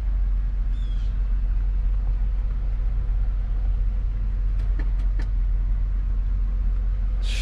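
A 2003 Cadillac DeVille's 4.6 Northstar V8 idling steadily with a low rumble, heard from inside the cabin. A few faint clicks come about two-thirds of the way through.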